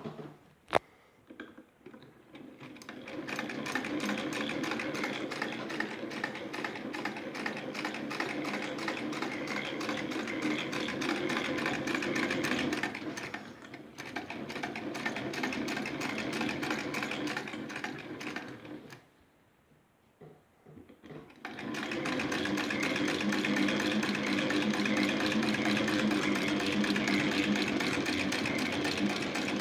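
A National (Eldredge) sewing machine running and stitching with a fast, even clatter. It stops for about two seconds partway through, then starts again.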